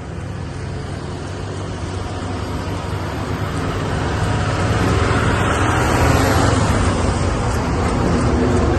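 Road traffic noise: vehicle engines and tyres rumbling, growing steadily louder as a truck draws up alongside.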